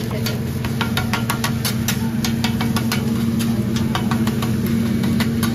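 Steady low mechanical hum from the exhaust hood fan over a hibachi grill, with a scatter of sharp irregular clicks on top.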